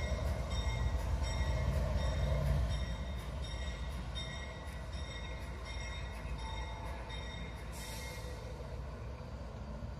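Diesel-electric freight locomotive engine rumbling deeply as it hauls freight wagons away at slow speed, easing off after about two and a half seconds. A light, regular ticking about twice a second runs over it, and a brief hiss comes near the end.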